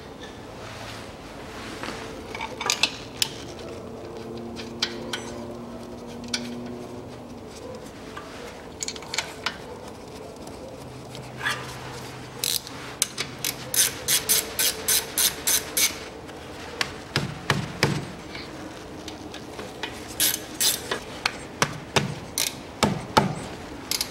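Metal spanner clicking and clinking on the bolts of a car's front brake caliper as they are tightened. The clicks come in runs, at times about three or four a second. A faint steady hum comes in for a few seconds about four seconds in.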